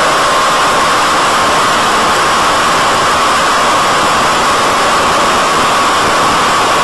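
Steady loud hiss with a faint whine held near one pitch: the BTE Delta Vortex flying wing's electric motor and propeller in flight with wind rush, heard through the static of the FPV video link.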